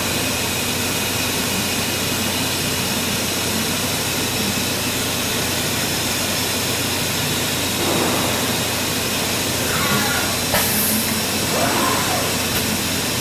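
Hurco VMX30U five-axis CNC machining center running a program, a steady hiss of spindle and axis drives as the trunnion table tilts and rotates the workpiece.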